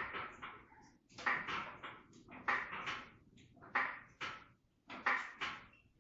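Floor jack being pumped to lift a car: a pair of clacks with each stroke of the handle, repeating about every second and a quarter.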